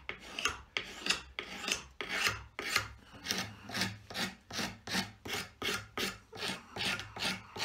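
Wooden axe handle being scraped by hand in quick, even strokes, about three a second. The work takes down the high spots the axe head's eye has marked, fitting the handle to the head.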